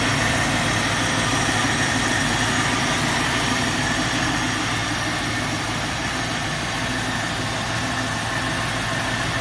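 1967 Ford Mustang engine idling steadily, freshly started by bypassing its bad starter solenoid.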